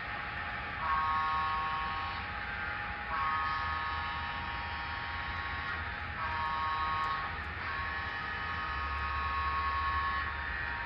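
Sound-equipped N scale model locomotive sounding its horn in four several-note blasts, the second and last longer than the others, over the steady low rumble of the train running on the track.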